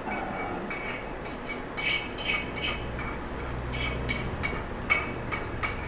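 A spatula scraping and tapping against a black frying pan in a quick series of short strokes, about three a second, as cooked rice is scraped out of the pan into a bowl.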